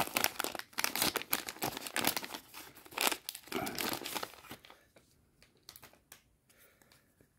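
Plastic wrapper of a Donruss 2021-22 basketball fat pack being torn open and crinkled by hand. The crackling dies away about two-thirds of the way through, leaving only a few faint rustles as the cards come out.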